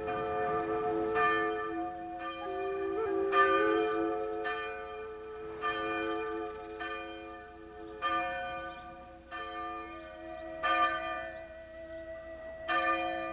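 Bells ringing in a slow peal, a new strike about once a second, each one ringing on under the next.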